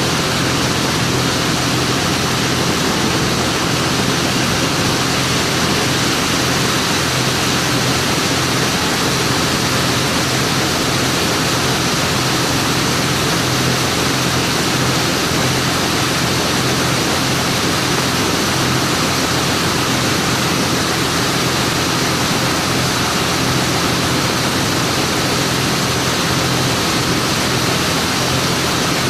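Steady rushing road and wind noise from a vehicle driving at an even speed, with a constant low engine drone underneath.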